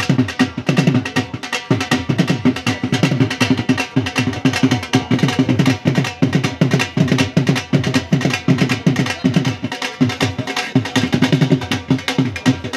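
Traditional folk drums (double-headed barrel drums of the dhol type) beaten in a fast, unbroken rhythm of dense strokes.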